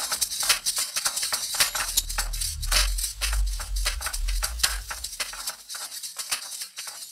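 Noise-folk breakcore music in a sparse, noisy passage: a dense, irregular crackle of rattling clicks, with a deep bass rumble that swells in the middle and drops away after about five and a half seconds, leaving the clicks alone.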